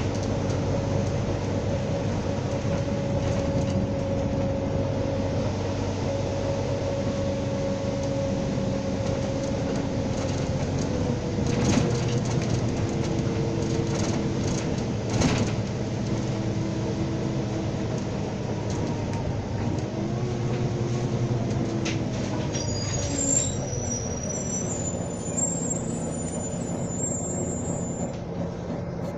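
Volvo B9TL double-decker bus under way, heard from the upper deck: its diesel engine and transmission running with whining tones that slide in pitch as it changes speed. There are two sharp knocks midway and a high-pitched squeal near the end.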